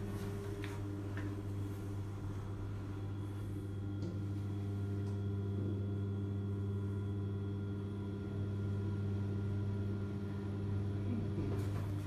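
Steady hum inside a Kone MonoSpace machine-room-less traction lift car as it travels upward, with a few faint clicks in the first four seconds.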